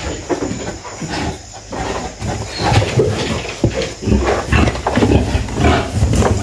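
Pigs grunting in a run of low, irregular grunts, louder from about halfway through.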